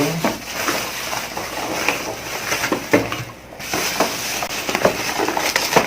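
Packaging being handled and items lifted out of a box: rustling and scraping with scattered clicks and knocks, and a sharper knock about three seconds in.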